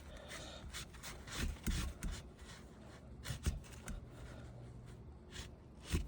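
Damp paper towel rubbing and wiping over a part, in short scrapes, with a few soft knocks from handling.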